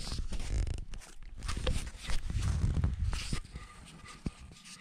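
Rustling and scuffing close to the microphone, with a few sharp knocks.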